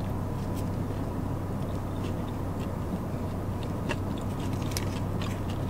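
Close-up chewing of a mouthful of chicken sandwich, with faint wet mouth clicks, over a steady low hum in a car cabin.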